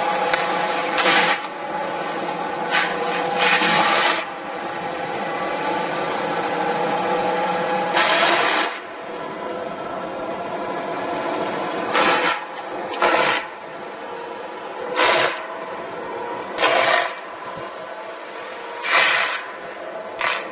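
A machine's engine running steadily, broken about ten times by short bursts of rasping, scraping noise, like a cutter working into wood.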